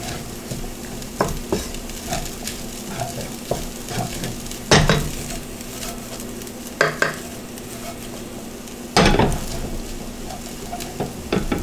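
Fried rice sizzling in a nonstick pan over a gas flame, stirred and scraped with a wooden spatula and tossed in the pan, with two louder clatters about five and nine seconds in.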